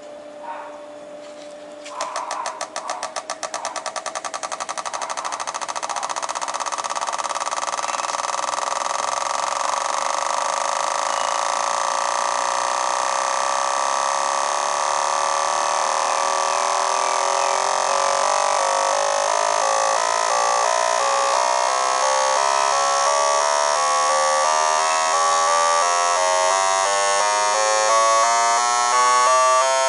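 Four fuel injectors pulsing on an injector test-and-cleaning bench during its automatic test cycle, which simulates engine acceleration. A steady hum, then rapid clicking starts about two seconds in and speeds up into a buzz that climbs in pitch and grows louder.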